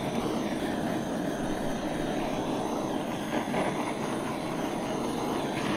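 Handheld gas kitchen torch burning with a steady hiss as its blue flame is played over green peppers to char their skins.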